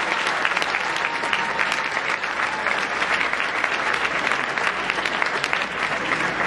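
A large audience applauding steadily, many hands clapping together in a continuous dense spread of claps.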